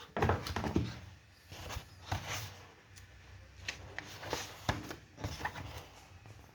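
Irregular paper rustles and soft taps as a paperback book is handled and its pages are turned.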